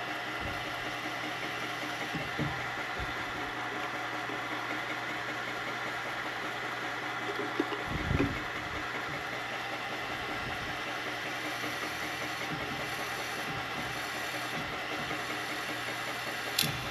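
Milling machine spindle running steadily with an even hum and whine as the cutter is plunged into and moved back and forth through a carbon fiber handguard. A few light knocks break in, the clearest about eight seconds in.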